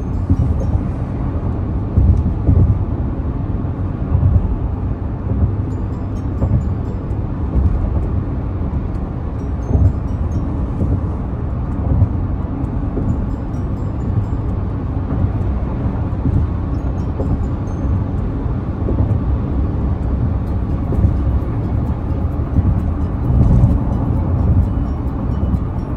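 Steady road and engine rumble of a car driving, heard from inside the cabin.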